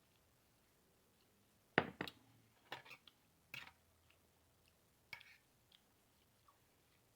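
Close-up eating sounds: a few sharp, wet smacks and clicks of chewing, the loudest about two seconds in, followed by several fainter ones.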